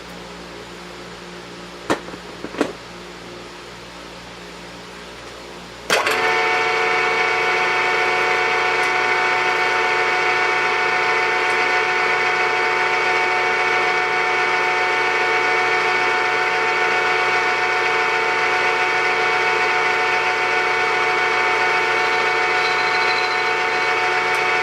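Two sharp clicks a couple of seconds in, then a 3-in-1 lathe-mill's spindle motor and gear drive switched on about six seconds in, running steadily with a whining mix of even tones.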